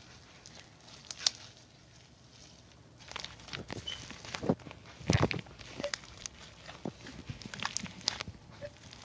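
White slime being squeezed and kneaded by hand, giving irregular clicks and pops, sparse at first and denser after about three seconds.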